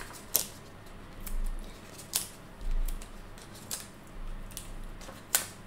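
Adhesive foam squares being peeled off their backing sheet and pressed onto a cardstock layer: light paper handling with a few scattered sharp clicks and rustles, the sharpest about two seconds in and near the end.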